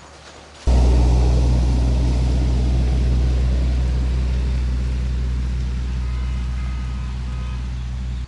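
A vehicle engine running with a deep, steady hum that starts abruptly about a second in and slowly fades, then cuts off suddenly.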